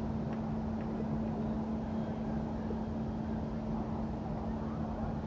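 Steady low rumble of city street traffic with a constant, unchanging hum.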